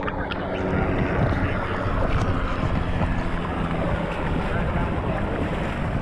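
Shallow seawater sloshing and splashing against a camera held at the waterline while a beach wheelchair is pulled through it, with wind buffeting the microphone. A sharp splash comes right at the start as the camera breaks the surface.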